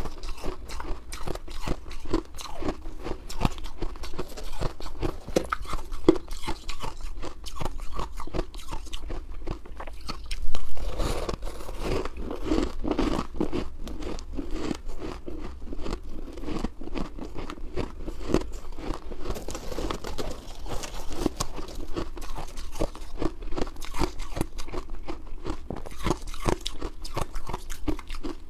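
Shaved ice being chewed: a steady run of rapid crunches, with one louder crunch about ten seconds in.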